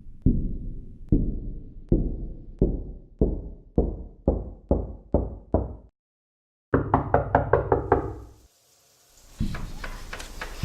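Deep, booming knocks that come faster and faster, each dying away, then stop dead for a moment. A quick flurry of sharper, brighter knocks follows, and after a short lull the rapid knocking starts again near the end.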